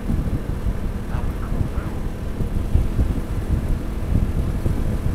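Wind buffeting the microphone at riding speed, a gusty low rumble over the steady drone of a Honda Helix scooter's single-cylinder engine.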